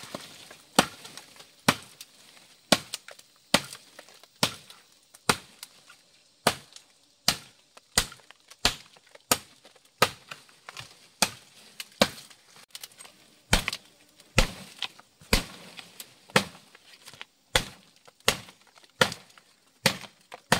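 Machete blade chopping into a fallen wooden branch, sharp blows in a steady rhythm of about one a second.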